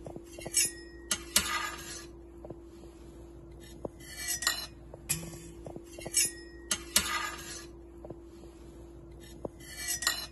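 Light clinks and short scrapes of a metal cake server against the serving tray and a ceramic plate as a cake slice is handled and set down, several times over a steady low hum.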